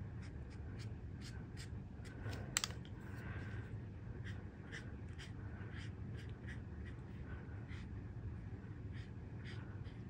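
Alcohol marker tip stroking across cardstock while colouring in: faint, short repeated strokes, a few a second, with one sharper click about two and a half seconds in.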